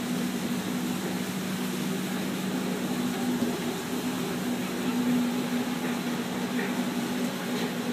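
Moored navy ships' machinery humming steadily: two steady low tones over an even hiss, the sound of shipboard ventilation and generators running alongside the wharf.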